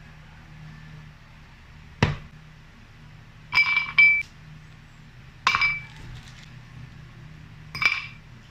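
Ice cubes dropped into a drinking glass: a dull knock, then three bouts of clinking with the glass ringing.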